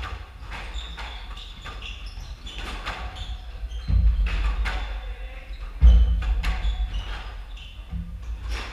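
Squash rally in an enclosed court: a rubber squash ball struck by rackets and hitting the walls and hardwood floor in repeated sharp knocks, with sneakers squeaking on the floor. Heavy thuds about four and six seconds in are the loudest sounds.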